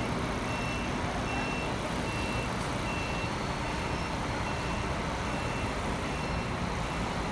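Diesel engine of a Scania K410 bus running steadily, with a short high beep repeating evenly a little more than once a second.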